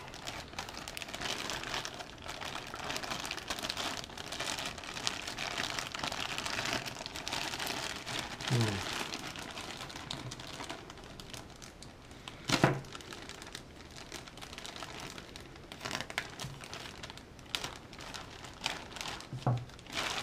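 Plastic mailer bag crinkling as it is handled and opened, with scattered sharp crackles.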